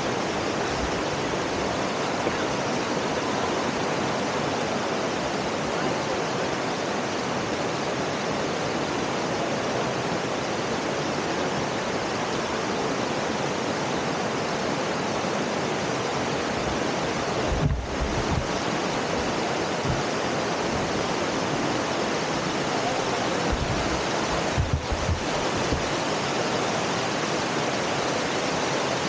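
Steady rushing of a river's water through a cave, an even wash of noise, with two brief low thumps in the second half.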